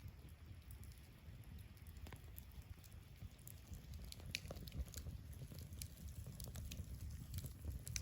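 Wood fire crackling, with irregular sharp pops and ticks over a low steady rumble.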